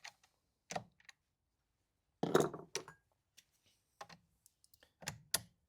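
Scattered clicks and light knocks of small plastic and metal parts being handled while a replacement recoil starter and its screws are fitted to a Stihl MS180c chainsaw, with a heavier clatter about two seconds in.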